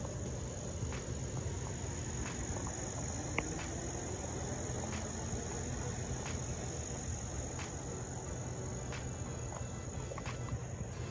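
Insects trilling in one steady, high, continuous tone over a low rumble, with faint ticks recurring about every second and a third.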